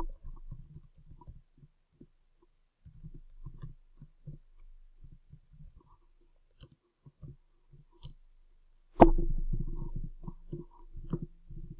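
Computer keyboard typing: irregular keystroke clicks and taps, with one much louder knock about nine seconds in and a quicker run of keystrokes after it.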